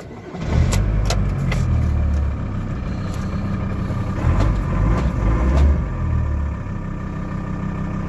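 VW LT35's 2.5-litre five-cylinder diesel engine starting with the immobilizer bypassed. It catches about half a second in and settles into a steady idle.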